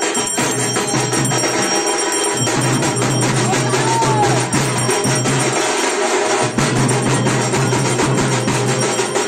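Music with a busy percussion beat and a low sustained note that comes and goes.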